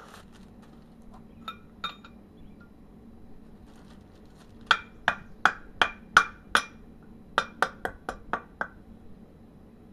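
A wooden stick knocking a frozen tapered bearing race down into a heated wheel hub, the steel ringing with each strike. A couple of light clicks come first, then six strikes about two a second, then a quicker run of about seven.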